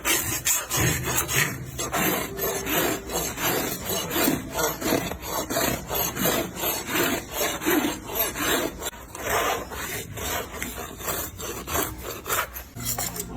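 Farrier's rasp filing a horse's hoof in repeated rough strokes.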